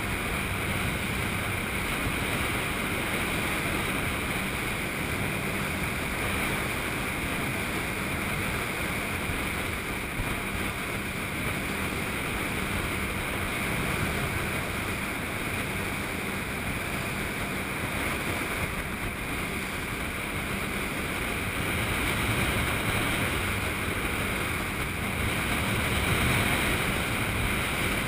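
Motorboat under way on a lake: a steady engine drone mixed with water rushing along the hull, with wind buffeting the microphone.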